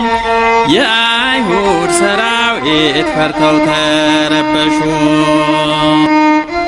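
Ethiopian Orthodox mezmur: a male singer chanting an ornamented line over sustained instrumental backing, the melody gliding up and down about a second in before settling into long held notes.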